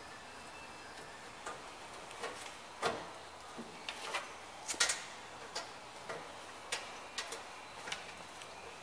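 Sharp, irregular metallic clicks and snips, about one or two a second, from a hand tool working the sheet metal at the cut-out edge of a car's rusted floor pan; the loudest is a quick double click about halfway through.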